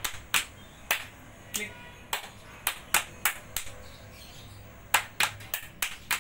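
Hand percussion for a scout clap routine: palms slapping the thighs and hands clapping in a sharp, uneven rhythm. A pause of about a second and a half falls midway, then a quick run of strikes comes near the end.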